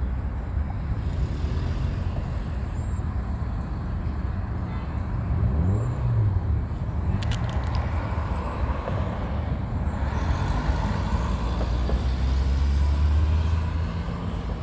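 Wind blowing hard across the microphone, a steady low rumble with gusts.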